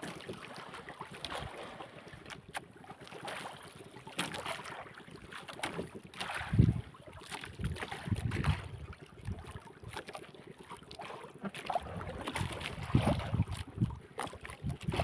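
Sea water lapping and slapping against the hull of a small fishing boat, with wind on the microphone and small clicks and knocks from the boat. Several dull thumps stand out, the loudest about six and a half seconds in and more near eight and thirteen seconds.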